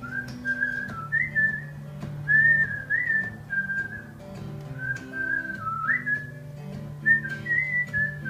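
A whistled melody of held, gliding notes over an acoustic guitar accompaniment.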